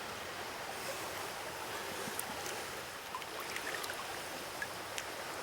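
Stream water running steadily, a smooth rushing hiss, with a few faint light clicks.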